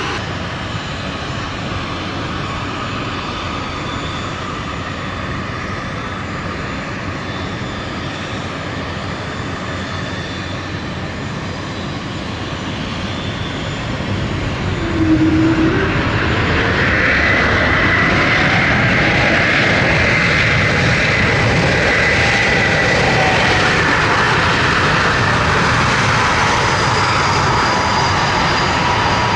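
Steady aircraft engine noise at first. About fifteen seconds in, the Airbus A220-100's Pratt & Whitney geared turbofan engines spool up with a rising whine, then run loud and steady.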